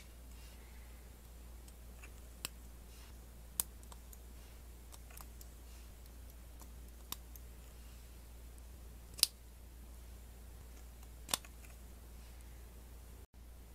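LEGO Technic plastic pins and parts clicking into place as they are pressed together by hand: several sharp clicks, the loudest about nine seconds in, over a low steady hum.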